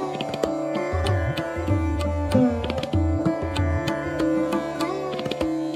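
Instrumental music in Indian classical style: a plucked string melody with notes bending in pitch, over a steady drone and regular hand-drum strokes with deep bass beats.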